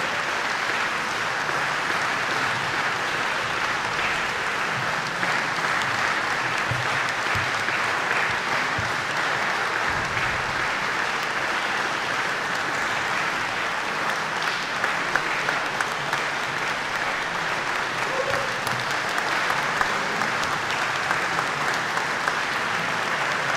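Audience applauding steadily, a dense even clatter of many hands, with a few sharper single claps standing out in the second half.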